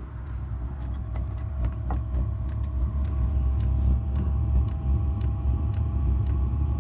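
A 5 kW Chinese diesel air heater starting up: a low combustion rumble builds over the first few seconds as the burner ramps up, with a steady fan whine and the faint ticking of its fuel dosing pump.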